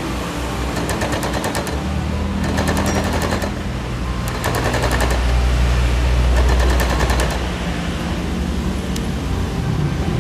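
Portable sewing machine stitching in four short runs, each a rapid, even clatter of needle strokes, over a steady low hum.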